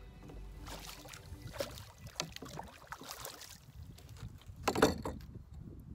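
Scattered knocks and clatter of fishing gear against a canoe as a hooked fish is played and a wooden landing net is picked up, with one louder knock about five seconds in.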